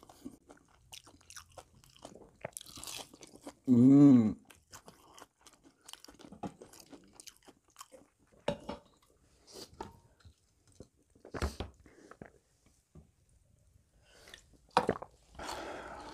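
Close-up crunching and chewing of crispy fried chicken, with scattered small crackles throughout. About four seconds in there is a short, loud vocal sound.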